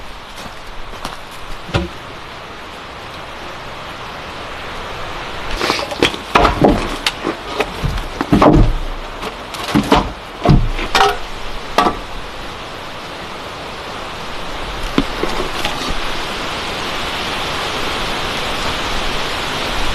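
A cluster of irregular knocks and thumps from about six to twelve seconds in, over a steady hiss of rain that grows louder toward the end.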